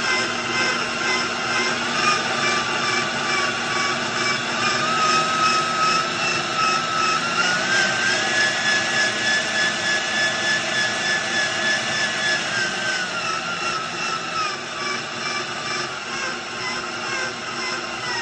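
KitchenAid Epicurean stand mixer running with a steady motor hum and a whine that the owner finds weird. The whine climbs in pitch in steps about a third of the way in, holds there, then slides back down.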